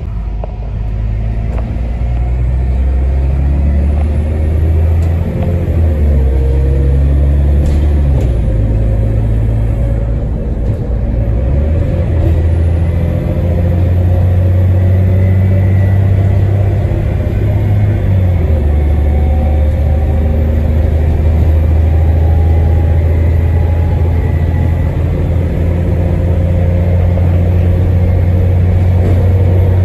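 Bus engine running as the bus drives, heard from inside the passenger saloon: a steady low drone with road noise, its pitch shifting several times.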